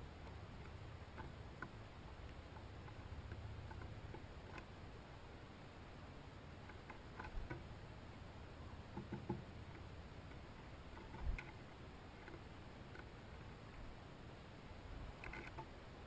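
White-breasted nuthatch pecking at a seed cake on a wooden rail: scattered faint taps and clicks over a low outdoor hiss, with a few louder knocks, the loudest about eleven seconds in.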